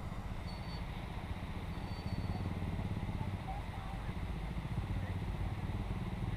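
A small engine running steadily with a low rumble, a little louder after about two seconds.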